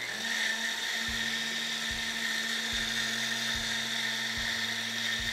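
Countertop blender motor running steadily with a high whine as it purées frozen peaches, frozen raspberries, protein powder and almond milk into a smoothie.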